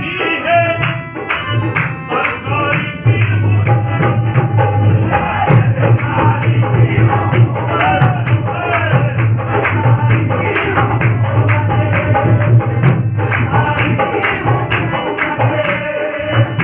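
Qawwali: men singing together to a harmonium, with steady rhythmic hand clapping.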